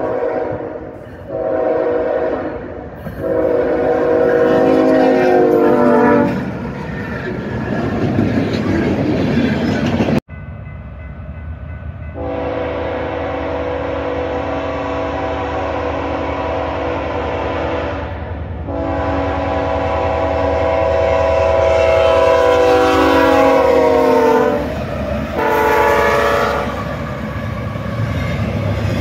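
Freight locomotive air horns sounding a multi-note chord in repeated blasts, from two trains one after the other. In each, the chord drops in pitch as the locomotive goes by. The second, a BNSF locomotive at the head of a double-stack train, blows two long blasts, a short one and another long one, the grade-crossing signal, over the low rumble of the passing train.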